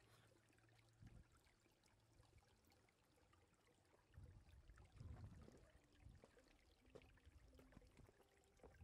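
Faint trickle of shallow rainwater running over rocks, with a few low thuds about four to five seconds in.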